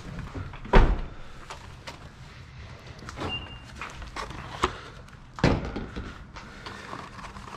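Two heavy thuds about five seconds apart, with lighter knocks and clicks in between.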